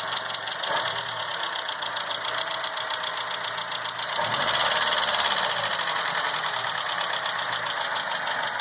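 Chevrolet Cruze four-cylinder engine running with a fast, even ticking, given a brief rev about halfway through. The tick comes from bad hydraulic lash adjusters (lifters), not from the injectors.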